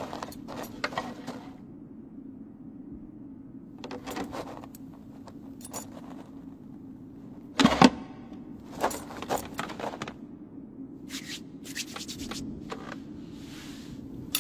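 Cartoon foley of light clicks and taps in short clusters: a woman's footsteps, then the clicking of knitting needles. One heavy thump comes about halfway through, and a steady low hum runs underneath.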